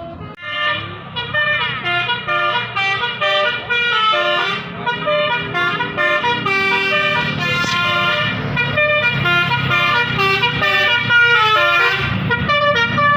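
Bus musical air horns (telolet basuri) playing melodies of held notes that step from pitch to pitch, more than one horn sounding over the others, with a low rumble underneath.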